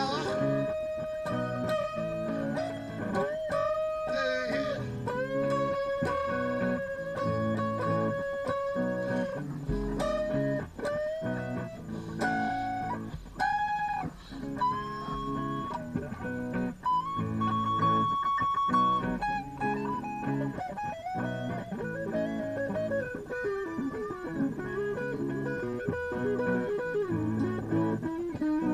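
Electric guitar lead playing long sustained notes that bend and slide in pitch, over a repeating rhythmic chord backing.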